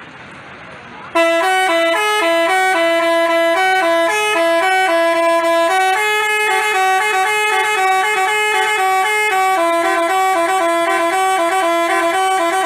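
Basuri telolet horn, the multi-tone musical bus horn, playing a quick tune of changing notes. It starts about a second in.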